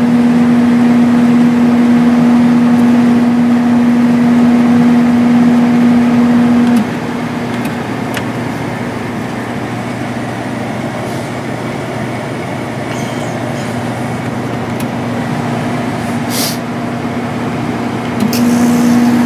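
1995 Sharp Comfort Touch 8,500 BTU air conditioner running: blower air noise under a steady hum. The hum cuts out about seven seconds in, leaving only the rush of the fan, and comes back near the end.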